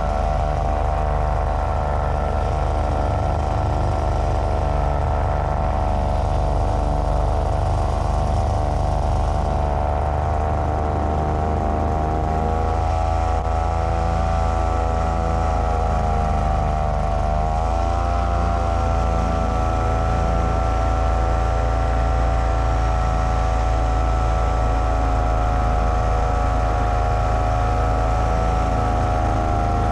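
Paramotor engine and propeller running steadily in flight. About 17 seconds in, the pitch dips briefly and then settles slightly higher, as with a small throttle change.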